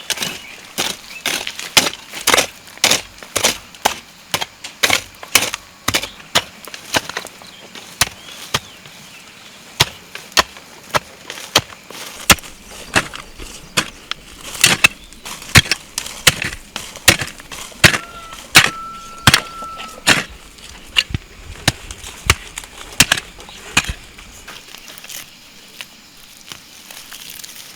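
Repeated chopping of wood with a blade: sharp, uneven strikes about two a second, thinning out near the end.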